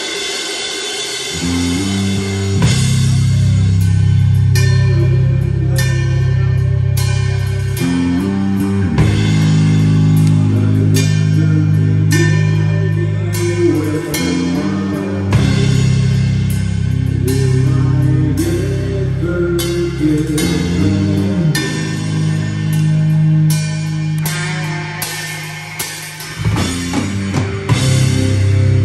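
Rock band playing live: electric guitar and bass guitar riffing heavily over a drum kit with cymbal crashes. The low riff comes in about a second and a half in, and the band breaks off briefly near the end before crashing back in.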